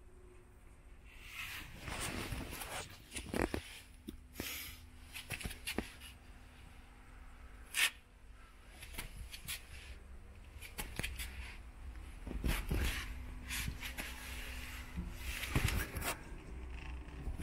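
Handling noise from a handheld camera being moved along a car's bodywork: irregular rustling, clicking and knocking over a faint steady hum.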